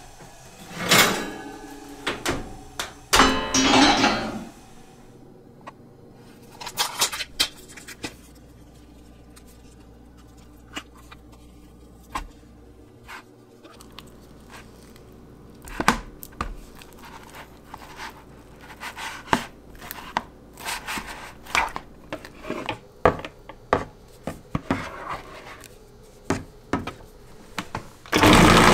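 Kitchen clatter as a pie dish is drawn out on the oven rack and set down, followed by scattered knocks and scrapes of a spatula and tubs against a plastic bowl. About a second before the end a food processor motor starts with a loud steady whir.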